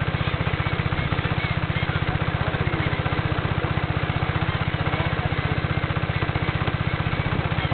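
A small boat's engine running steadily, with a fast, even low pulse that does not change.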